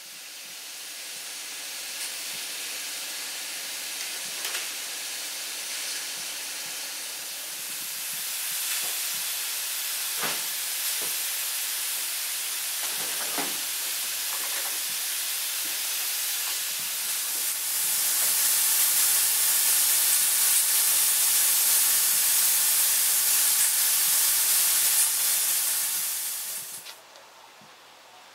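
Steam locomotive letting off steam: a steady hiss that builds up, is loudest over the last third, and cuts off abruptly near the end, with a few faint knocks in the middle.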